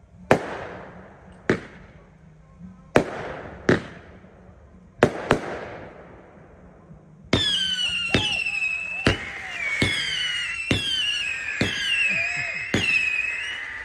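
Fireworks going off: sharp bangs a second or so apart, each trailing off. About halfway in, many overlapping high whistles that fall in pitch join the bangs, which keep coming.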